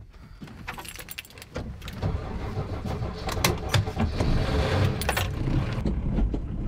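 Keys jangling, then an old converted van's engine starts up about two seconds in and runs, settling into a steady idle near the end.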